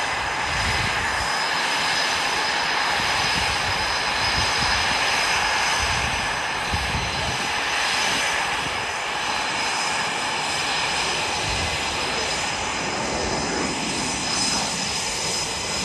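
Jet engines running steadily: a continuous rushing noise with a high turbine whine held throughout.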